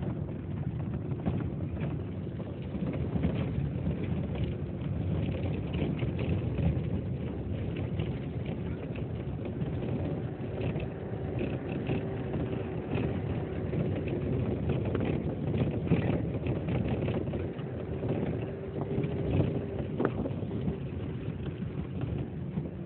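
Motor vehicle on the move: a steady engine drone and road noise with frequent small rattles and knocks.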